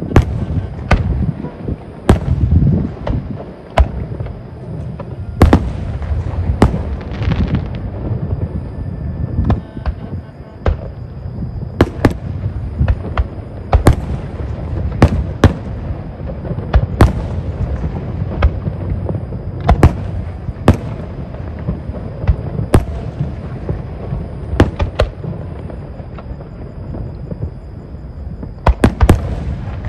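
Fireworks display going off: a long irregular series of sharp bangs, with a quick cluster of them near the end, over a continuous low rumble.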